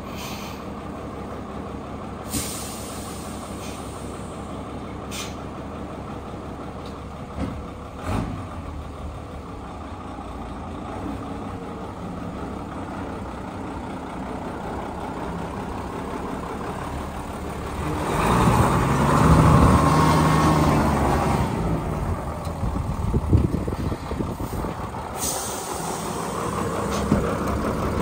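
Mitsubishi Fuso truck's freshly rebuilt 6D14 inline-six diesel idling steadily, with a few short air hisses. It grows louder for a few seconds about eighteen seconds in.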